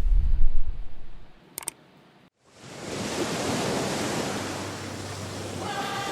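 Steady rushing noise of water, like surf, after an abrupt cut from a low rumble and a short gap; faint musical notes come in near the end.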